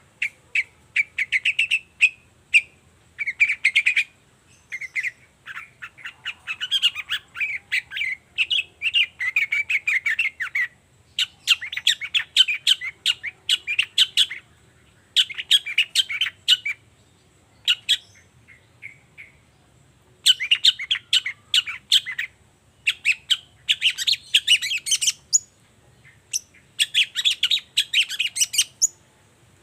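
Long-tailed shrike (cendet) singing: phrases of rapid chattering notes, each one to three seconds long, with short pauses between them.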